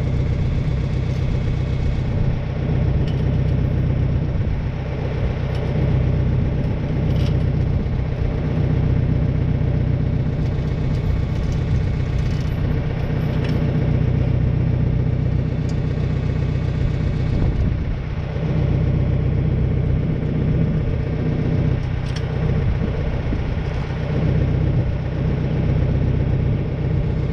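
Tractor engine running steadily, with the sprayer boom mounted on it.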